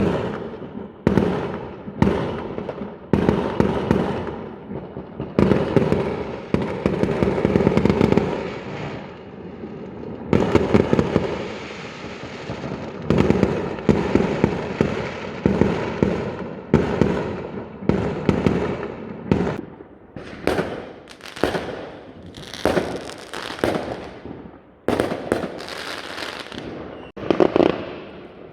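Many fireworks going off one after another, about one every second, each a sudden bang with a rumbling tail, overlapping at times and mixed with crackling.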